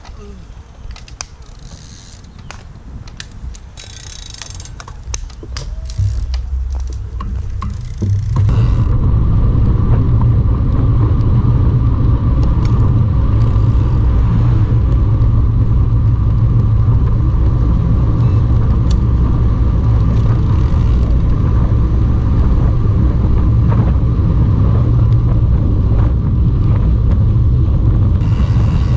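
Wind rumbling on the microphone of a camera riding along on a road bicycle, with scattered light clicks at first. About eight seconds in it jumps to a loud, steady rumble, as the bike picks up speed.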